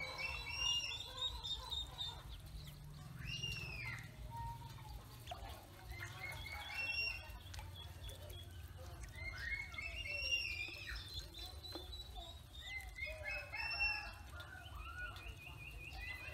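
Ducklings peeping: many short, high-pitched calls, overlapping and repeated throughout.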